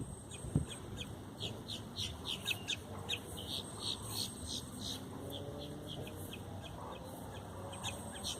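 Birds chirping in short, high, repeated calls, two or three a second, over a low rumble of wind.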